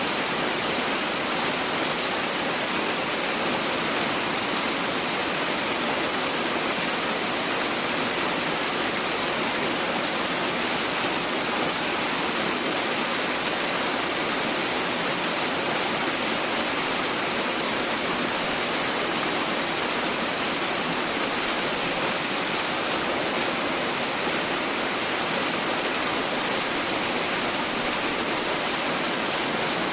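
Steady, even rush of falling water from a tiered mountain waterfall, unchanging throughout.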